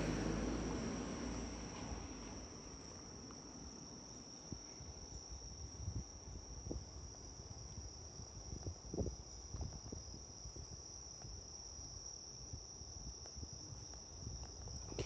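Crickets chirring in one steady high-pitched trill, with soft close rustles and taps scattered through it.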